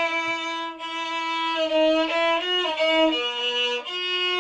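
A violin bowed solo, playing a slow classical melody of long held notes that step from one pitch to the next.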